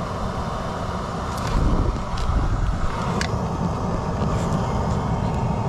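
Steady rumbling background noise with a few light clicks.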